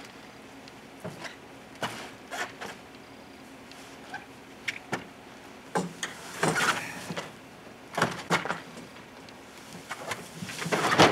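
Scattered knocks and scrapes as a deer carcass on a metal game cart is hauled up onto a pickup's tailgate, the cart frame and body dragging against the truck. The louder scraping comes in spells about six seconds in, around eight seconds, and loudest near the end.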